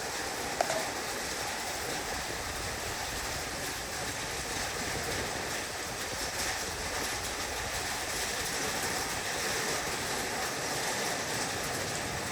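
Heavy rain falling on a roof, a steady, even hiss of drops. There is one sharp tick just over half a second in.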